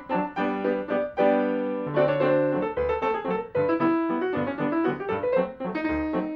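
Solo piano accompaniment music, with quick runs of notes over regular bass notes.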